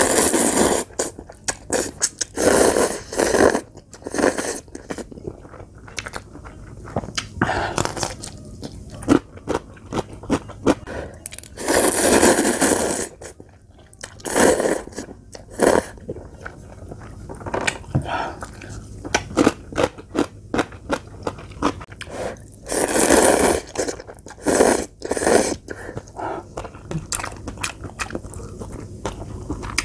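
Instant ramen noodles slurped in long pulls, about six times, between close-up chewing and short clicking mouth sounds.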